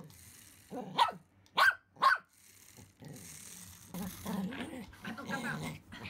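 Pomeranian barking three times in quick succession, sharp and about half a second apart, then growling low for a couple of seconds, worked up by a remote-control toy mouse.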